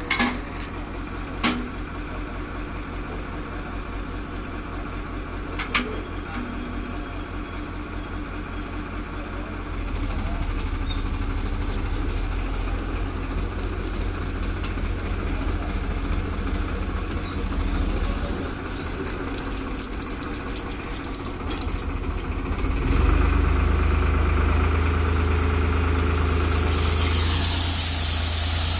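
Tractor engine running steadily, its revs and level rising at about ten seconds and again at about twenty-three seconds as the trailer is tipped. Near the end a loud rushing hiss joins it: the gravel load sliding out.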